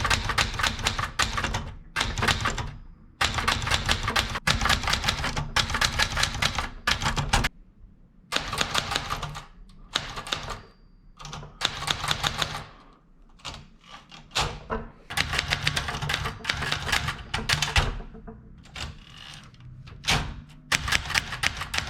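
Typewriter typing: keys striking in fast runs of clicks, broken every few seconds by short pauses.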